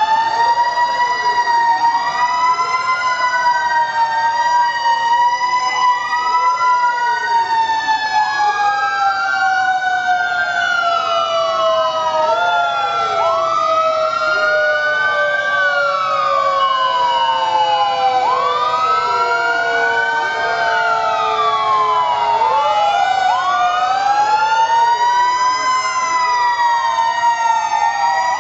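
Several fire-engine sirens sounding at once as a column of fire trucks drives past. Some wail up and down every few seconds, overlapping one another, while one long tone slides slowly down in pitch.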